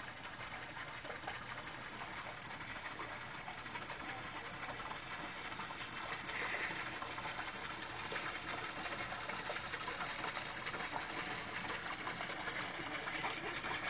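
A small boat running steadily across a pond as it comes closer, its even mechanical noise growing slightly louder toward the end, with birds calling in the background.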